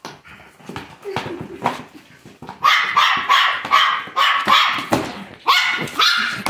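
Dog barking excitedly in a quick run of about six high-pitched barks from about two and a half seconds in, then three more near the end, with a few knocks and scuffs of a cardboard box being pawed across a wooden floor before the barking.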